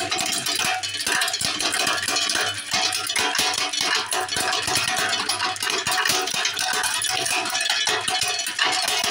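Hazelnut cracking machine running, with cracked hazelnuts and broken shells clattering steadily as they stream out of the chute into a plastic tub, while a hand stirs through the pile.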